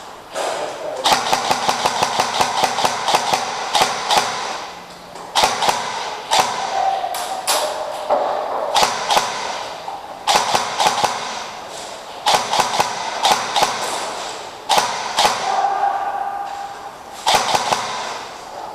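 Airsoft electric rifle (AEG) firing full-auto bursts: the gearbox motor whirs under a fast, even rattle of shots. There are about eight bursts, the longest about three seconds near the start, the rest short, with brief pauses between.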